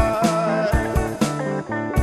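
Background music: an instrumental stretch of a rock song with guitar and a steady drum beat.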